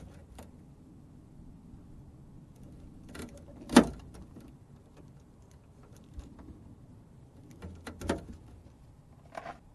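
Wire stripper squeezing and snapping as insulation is stripped from the door lock actuator's harness wires: a few scattered sharp clicks, the loudest snap about four seconds in and another pair about eight seconds in.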